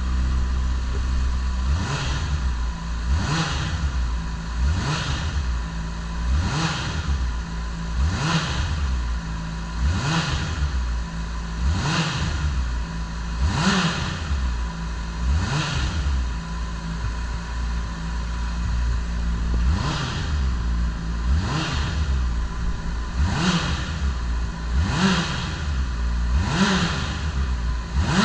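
Honda CBR600RR's inline-four engine through its stock exhaust. It idles briefly, then is blipped repeatedly, about once every second and a half to two seconds, each rev rising sharply and dropping straight back to idle.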